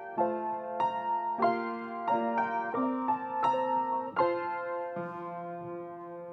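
Piano playing a slow postlude: single notes and chords struck one after another, the last chord held and left ringing for the final couple of seconds.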